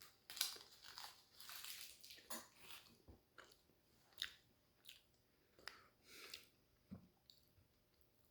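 Faint sounds of a man eating a Reese's chocolate peanut butter cup: a sharper crackle about half a second in, then chewing with scattered short mouth clicks.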